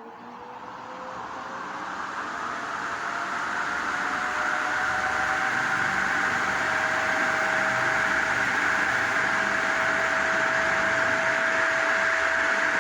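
Ventisol Fharo ceiling fan spinning up: a rush of air from the blades and a motor hum that grow louder and rise in pitch over the first few seconds, then run steady at speed.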